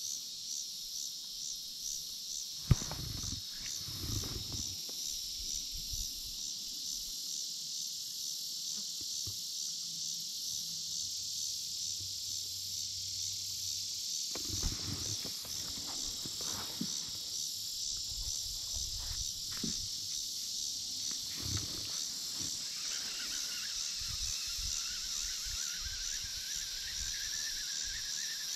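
Insects chirping in a steady, evenly pulsing high-pitched chorus, with a second, lower insect tone joining near the end. A sharp click about three seconds in and a few soft low thumps.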